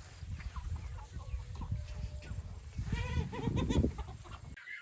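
Flock of free-range chickens clucking, with a burst of several overlapping calls about three seconds in, over a low rumble. The sound cuts off abruptly just before the end.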